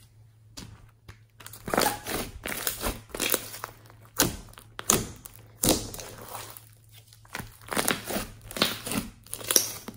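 Hands kneading, stretching and squeezing homemade slime mixed with beads and glitter, making irregular squishing clicks and crackles after a quiet first second and a half.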